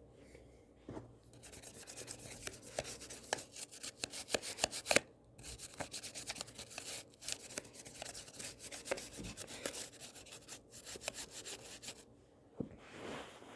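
A phone being scrubbed clean: rapid, scratchy rubbing strokes with a few brief pauses, stopping shortly before the end.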